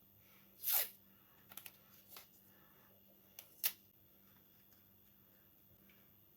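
A few brief handling sounds: a short rustle or swish just under a second in, then scattered light clicks and ticks, the sharpest near the middle.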